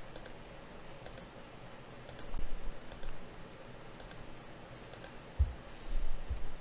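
Computer mouse button clicking about once a second, six clicks each heard as a quick press-and-release pair, while nodes are selected on screen. A few dull low thumps come in between, the loudest about two-thirds of the way through.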